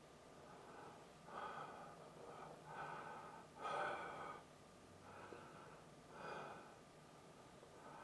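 A person's breathing close to the microphone: about five short, noisy breaths a second or so apart, the loudest about four seconds in.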